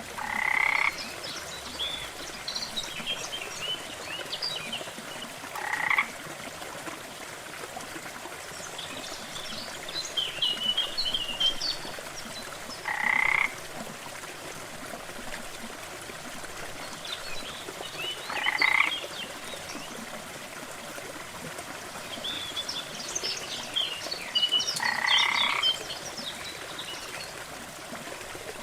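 Frogs croaking, five short calls a few seconds apart, with scattered higher chirps in between, over the steady rush of a small waterfall.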